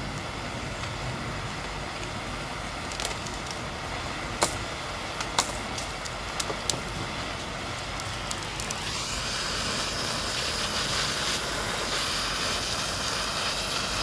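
A few sharp clicks, then about nine seconds in a handheld propane torch's flame comes up to a louder steady hiss as it is played over the ham's honey and brown sugar glaze to caramelize it.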